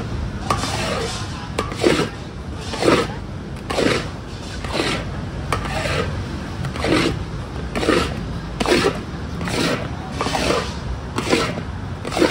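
Metal-bladed paddle scraping and sweeping around a large steel wok as it stirs thick batter, in rough rasping strokes about once a second.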